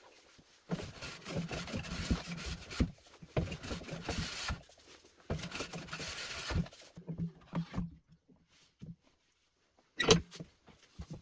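Wooden hand plane cutting shavings along the edge of a board: three long strokes, then a few shorter ones. About ten seconds in, a single sharp wooden knock as the bench vise is worked.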